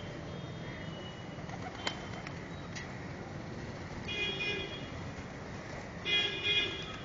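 A vehicle horn honks twice, each honk about half a second long, over a steady low rumble of traffic. A single sharp click comes about two seconds in.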